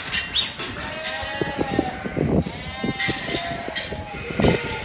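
Several sheep bleating in long, overlapping calls, with short knocks and clatter among them.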